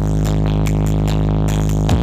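Electronic dance music with a heavy, held bass drone, played loud through a large outdoor sound-system rig; a quick bass sweep cuts across it near the end.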